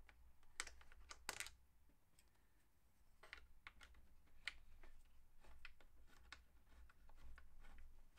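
Faint, scattered light clicks and clinks of small fitting hardware for a wheelie bar being handled, with a short quiet pause about two seconds in.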